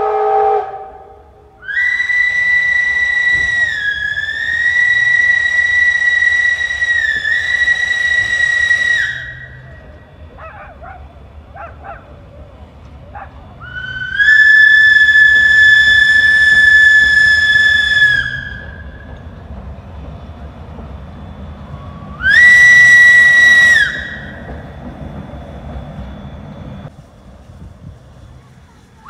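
Steam locomotive whistle blown three times: a long blast of about seven seconds that dips in pitch twice, a blast of about four seconds, then a short blast of about a second and a half. Each is a shrill, steady tone, with a low rumble underneath.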